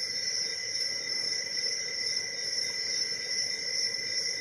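Crickets trilling, a steady high-pitched chirring that holds unchanged throughout.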